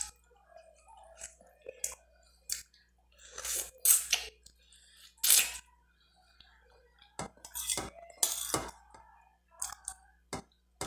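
Eating sounds: a metal spoon clicking against a cut-glass bowl, with a few short wet slurps and mouth noises as chicken canja with bread is eaten from hand and spoon.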